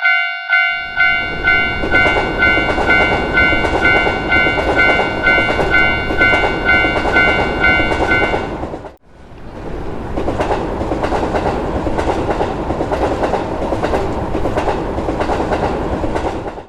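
A level-crossing alarm bell ringing about two and a half times a second while a train passes with rolling wheel-on-rail clatter. The bell stops about eight seconds in. After a sudden break near nine seconds the train noise carries on, then cuts off abruptly.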